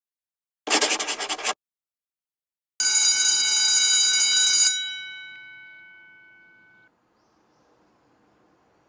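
An alarm-like bell ringing: a short, rapidly pulsing burst, then a longer loud ring that stops abruptly and leaves its tones ringing down over about two seconds.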